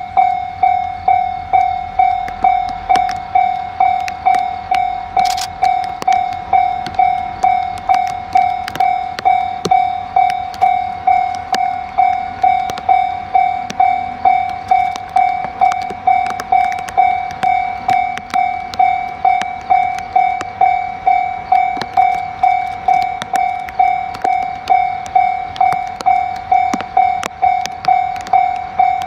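Railway level-crossing warning bell ringing steadily, an even electronic ding repeating about twice a second, as it does while a train is due on the line.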